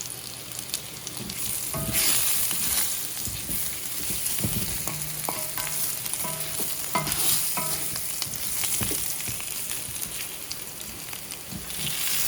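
Beets sizzling and steaming in a pan with a little water, the hiss swelling now and then, with a few brief clinks.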